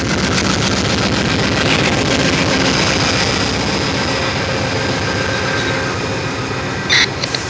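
Amtrak P42 diesel locomotive passing close below, its 16-cylinder GE engine running loud and steady under the rumble of the train's wheels on the rails.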